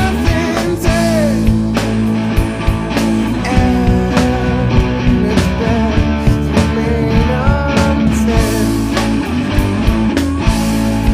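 Rock band playing an instrumental passage: drums, bass and electric guitar, with a lead line of bending, gliding notes over a steady beat.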